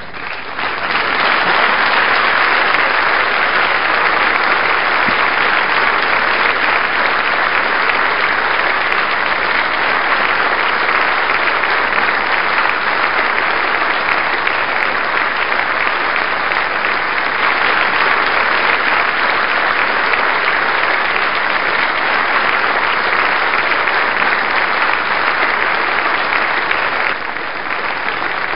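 Large assembly of deputies applauding together, a long steady ovation that builds in the first second and eases a little near the end.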